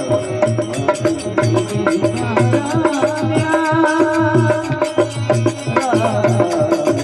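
Marwari folk bhajan music with a steady hand-drum beat, sharp clicking percussion and a wavering melody line, without words.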